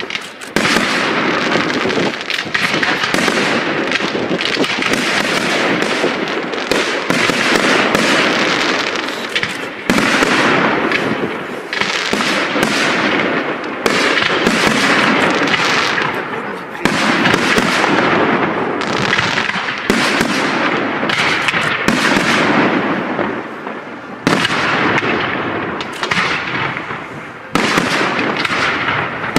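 A professional aerial fireworks display: dense, overlapping volleys of rapid pops and crackles, with a fresh loud salvo breaking in every few seconds.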